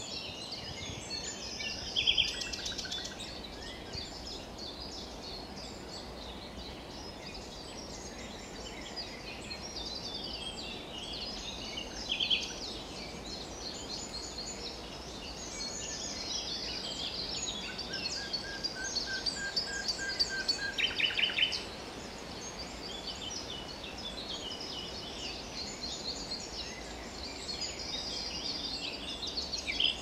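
Common nightingale singing: varied, sharply separated phrases with sudden loud bursts, and about two-thirds of the way in a string of about nine slow, evenly spaced whistled notes that swells into a loud rapid trill. Other songbirds sing softly behind it.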